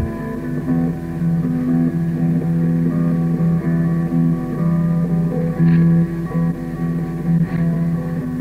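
Lo-fi home-recorded guitar music with sustained, droning notes that shift every second or so. It was taped on cassette by holding a portable recorder up to another cassette recorder, which gives it a dull, roomy tape sound.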